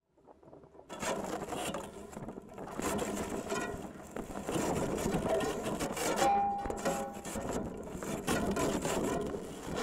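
Carbon fiber rods of a hand-built electroacoustic instrument with a 3D-printed PLA core, rubbed and scraped by hand through its pickup, giving a dense scraping, crackling texture. About six seconds in, a single steady tone sounds for about a second.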